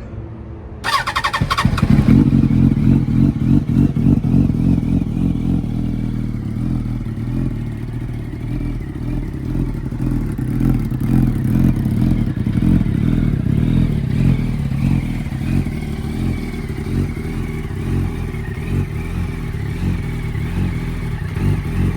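2007 Yamaha R1's inline-four motorcycle engine, on a Delkevic half-system exhaust with the catalytic converter and dB killer removed, catching about a second in. It flares briefly, then settles into an uneven, lumpy idle, which the owner puts down to the new pipes and thinks may need a tube or similar fix.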